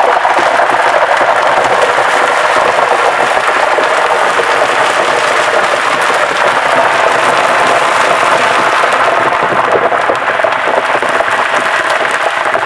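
Hot cooking oil, at about 400 °F in an electric deep fryer, sizzling and crackling steadily as the last of an ice cube melts in it and its water boils off as steam.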